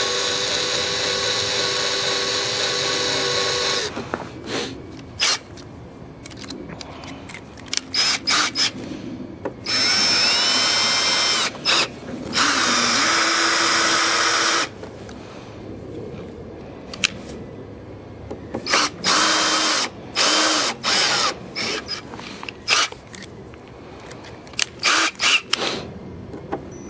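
Electric drill turning a left-handed drill bit and screw extractor into a broken brass screw in old wood. It runs steadily for about four seconds, then in many short trigger pulses and a few longer runs where the motor whine rises as it spins up, worked slowly to ease the screw out.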